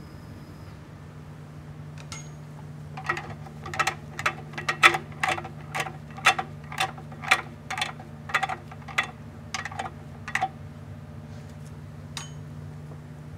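Hand tools working a Dodge diesel's torque converter bolts loose: a run of sharp metallic clicks, about two a second, for about seven seconds from around three seconds in, with a few single clicks before and after. A steady low hum runs underneath.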